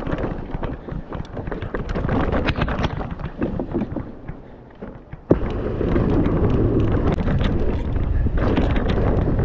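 Mountain bike ridden fast down a dirt trail: tyres rolling and crunching over dirt, with frequent small rattles and clicks from the bike, and wind rushing over the microphone. About five seconds in there is a sharp click and the rush becomes louder and steadier.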